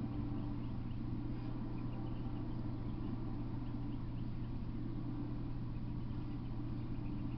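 Steady low hum with faint bird chirps now and then.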